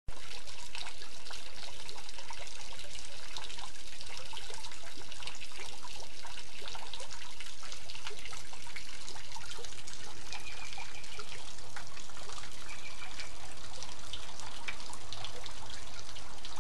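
Water trickling and splashing from a stone garden fountain, spilling over the rim of its basin into the pool below in a steady patter.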